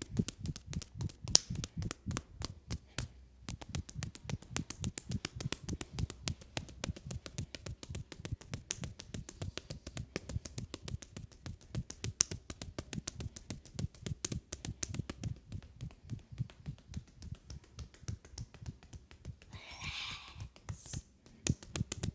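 Hands tapping and slapping rapidly on a leg in a percussive massage, several light strokes a second, with a short pause about three seconds in. A brief rustle comes near the end.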